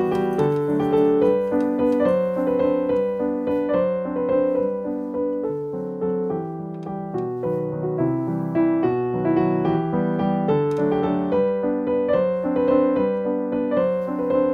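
Background piano music, a steady melody of single notes.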